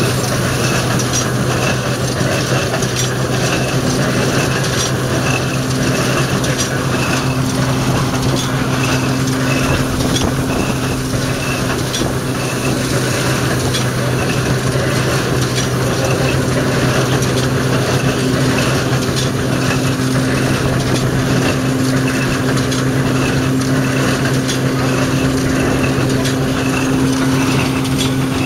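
Ransomes threshing machine and Jones baler running together at steady speed: a constant mechanical hum with a regular light clacking a little under twice a second.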